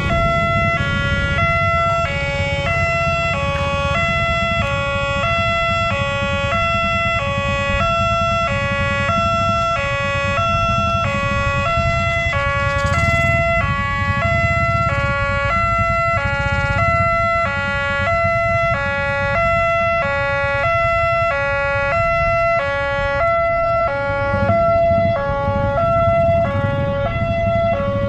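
Railway level-crossing warning siren sounding continuously, an electronic two-tone wail switching steadily back and forth between two pitches while the barrier is down for an approaching train, over a low rumble.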